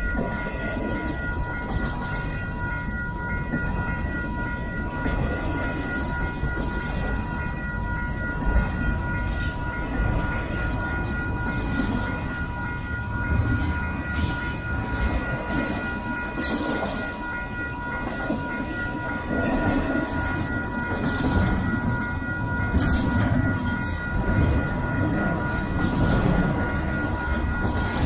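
Double-stack intermodal container well cars rolling past at trackside: a steady heavy rumble of wheels on rail with scattered clicks and clatter, joined by a thin high ringing that holds at an even pitch.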